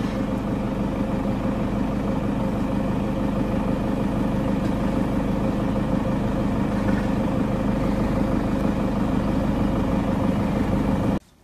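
Vehicle engine idling, a steady hum that holds level throughout and cuts off suddenly near the end.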